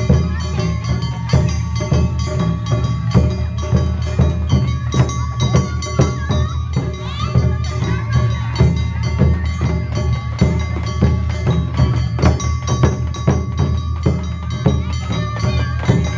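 Live Japanese festival dance music: drums and metallic hand percussion keep a steady beat under a held high melody note.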